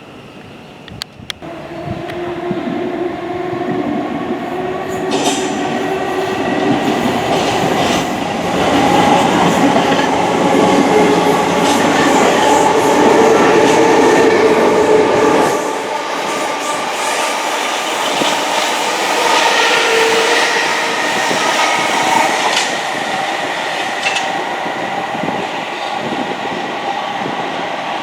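A passing train on the lines below, wheels rumbling and clattering on the rails with steady tones running through the noise. It builds over the first few seconds, is loudest around the middle, then its low rumble cuts off suddenly and it carries on more quietly.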